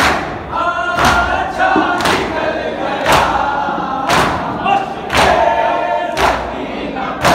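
A crowd of men beating their chests in unison (matam), a sharp slap about once a second, while they chant a noha (mourning lament) together between the strikes.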